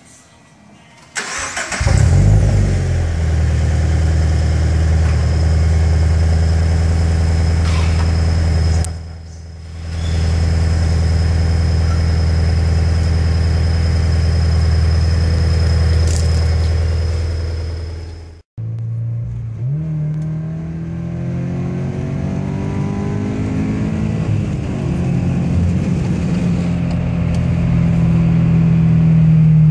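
2013 Scion FR-S's 2.0-litre flat-four boxer engine, heard through a newly fitted PTUNING DS-325 stainless-steel exhaust, starting for the first time: brief cranking, the engine catching about two seconds in, then a steady idle. After a sudden cut, the same car is heard from inside while driving, its engine note rising as it accelerates.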